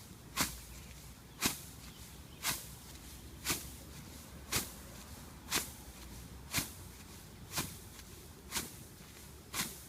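Even steps crushing down a stand of cereal rye, about one a second, each a short crisp crunch of stems.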